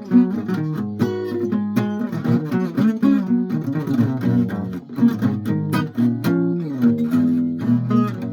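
Guitar music: plucked string notes in a quick, busy run of changing pitches, with no singing.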